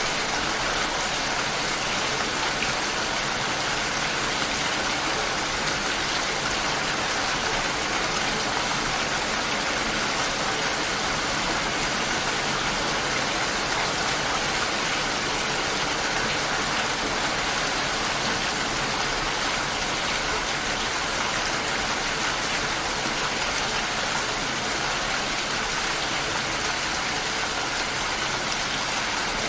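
Steady light rain falling, an even hiss of many drops with no thunder and no separate events.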